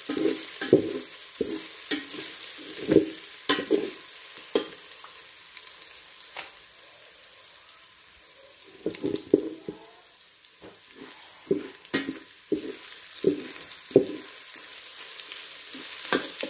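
Onions, garlic, cumin seeds and bay leaves sizzling in ghee in a steel pot, while a stainless steel slotted spatula scrapes and clinks against the pot bottom in irregular strokes as it stirs them. The stirring pauses for a couple of seconds near the middle, leaving only the sizzle.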